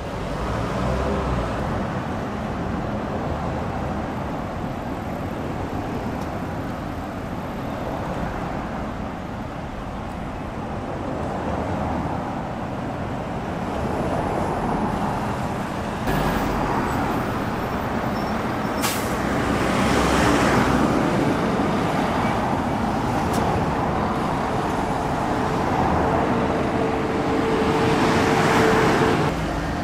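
Road traffic: city buses and cars driving past, an engine hum and tyre noise that swell and ease as the vehicles go by.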